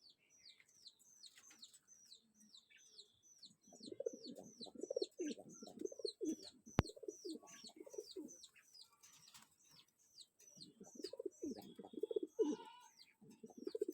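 Sirazi pigeons cooing in two spells of low, pulsing coos, over a steady run of short, high, falling chirps from small birds. A single sharp click near the middle.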